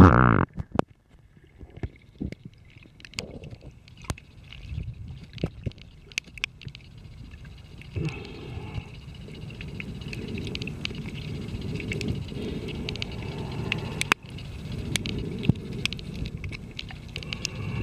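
Underwater sound picked up by a submerged camera while snorkeling: it opens with the tail of a splash, then a muffled low rumble of moving water with scattered sharp clicks. The rumble grows steadier and louder about halfway through.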